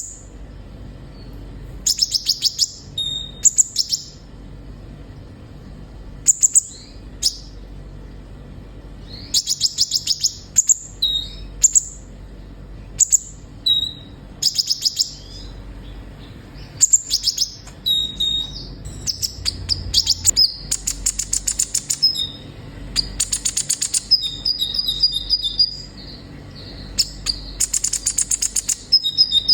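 Kolibri ninja sunbird singing: short bursts of rapid, high-pitched chirping trills come every second or two, mixed with thin whistled notes.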